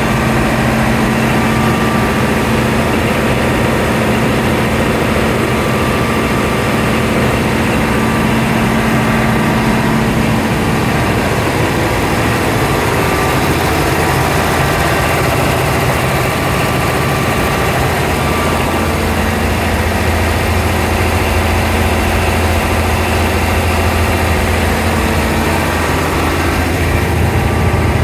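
Diesel engines running steadily inside a locomotive engine room, a loud continuous drone. Its tone shifts about a third of the way in and turns deeper and heavier past the middle.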